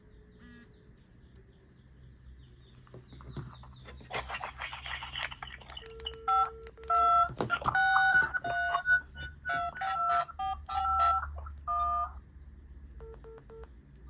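Keypad mobile phone sounding electronic beeps: a fast, jumpy run of two-note beeps for about six seconds, then three short key beeps near the end.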